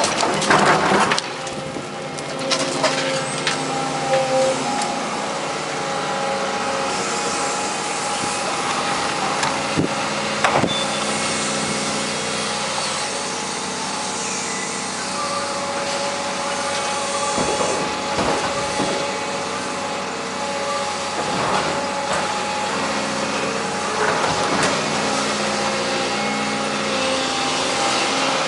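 Daewoo 220LC excavator's diesel engine running under hydraulic load with a steady whine as the machine swings and raises its boom. Loud crunching of concrete breaking under the bucket in the first second, then a few sharp metal knocks and clanks.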